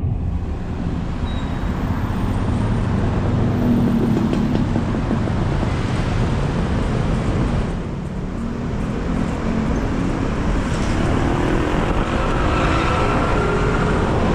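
A car driving in city traffic: a steady rush of engine and road noise, with an engine rising in pitch over the last few seconds as it speeds up.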